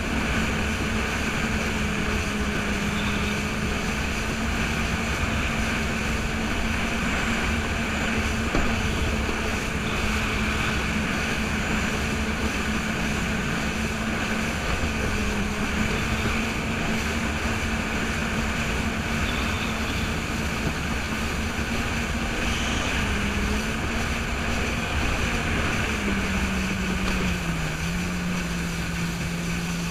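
Jet ski engine running steadily while cruising across choppy water, with a constant rush of noise under it. Its pitch eases down a little near the end.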